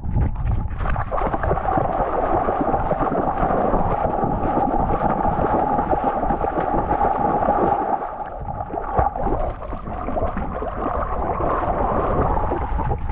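Water sloshing and gurgling right against a camera strapped to a cocker spaniel as the dog wades and swims through a river. It eases off for a couple of seconds about eight seconds in, then picks up again.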